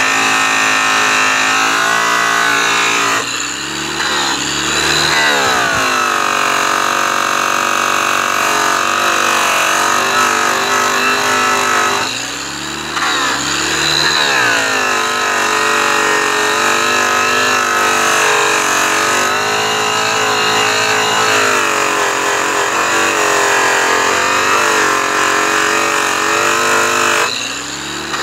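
Makita electric angle polisher running at speed with a yellow airway buff on aluminum, a steady high motor whine with the buff's rush. Its speed sags and climbs back three times: about three seconds in, around twelve seconds, and near the end.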